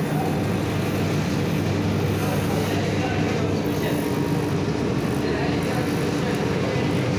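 Steady hum and rumble of workshop machinery, unchanging throughout, with voices murmuring underneath.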